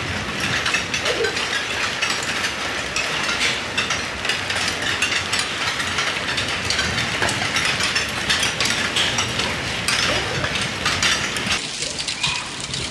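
Hailstorm: a steady, dense hiss of heavy rain, full of sharp clicks of hailstones striking. About a second before the end it cuts abruptly to a duller patter of rain and hail.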